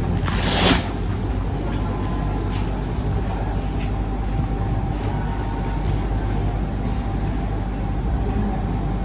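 Steady low rumble with a faint steady hum, and a brief rustling hiss about half a second in.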